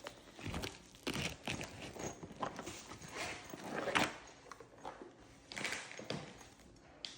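A nylon tool pouch being handled: irregular rustles and light knocks as the tools inside shift and bump together.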